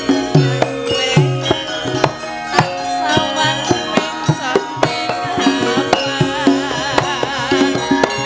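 Javanese gamelan music: many ringing, held metal tones over kendhang drum strokes that dip in pitch about once a second, with a wavering melodic line above.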